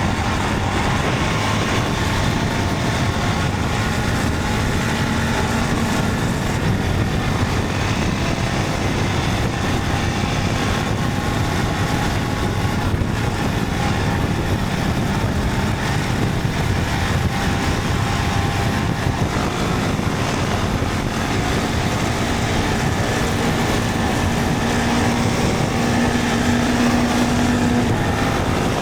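Motorcycle running at speed with steady wind and road noise, heard from the rider's position. The engine note comes through more clearly and slightly louder in the last few seconds.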